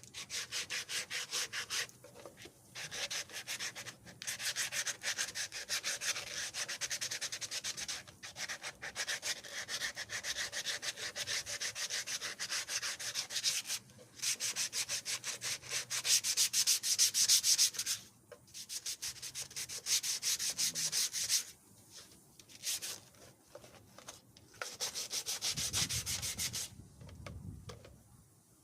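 Sandpaper scrubbed in quick back-and-forth strokes over a painted carbon-fiber side mirror, taking off the blue paint, in several runs of strokes with short pauses between them. A low rumble comes in near the end.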